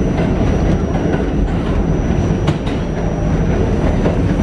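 R46 subway car running through a tunnel, heard from inside the car: a loud, steady rumble of wheels on the rails, with a couple of sharp clacks about two and a half seconds in. A thin steady high whine runs under it.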